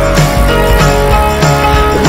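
Background pop music with a steady drum beat, in a gap between sung lines.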